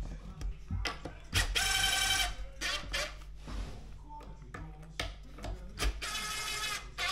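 Cordless impact driver (Festool TID 18) driving screws into wood in two short bursts about four seconds apart, each buzzing for under a second. Light knocks and taps from handling the boards come in between.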